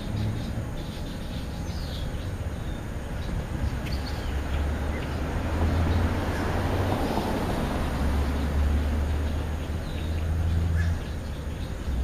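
A vehicle passes, its noise swelling to a peak in the middle and fading again, over a steady low rumble. Small birds chirp faintly now and then.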